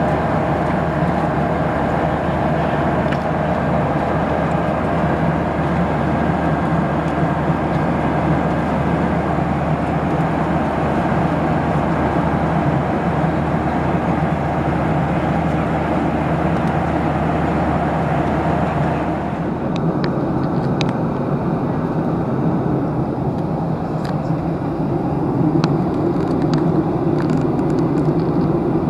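Steady engine and air rumble heard from inside a moving vehicle. About two-thirds of the way through, the sound changes abruptly, losing its higher hiss, and a few faint clicks follow.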